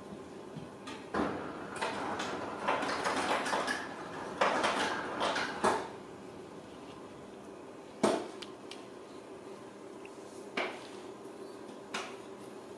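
Ragdoll kittens scrambling over blankets and the nylon edge of a fabric pet crate: a few seconds of scratchy rustling of claws and cloth, then three separate sharp clicks.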